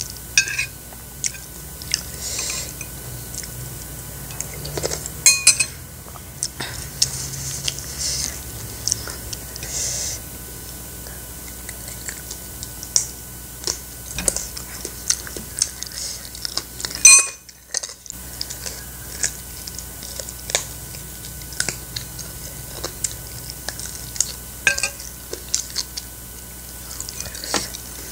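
Close-up eating sounds: a metal spoon clinking and scraping on a ceramic plate and soup bowl, with chewing between the scattered, irregular clinks. About two-thirds of the way through, a loud clink is followed by a sudden short gap of near silence.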